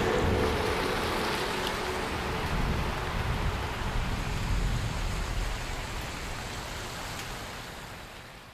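Steady rain hissing on wet pavement, with a low rumble swelling in the middle; the rain fades out near the end.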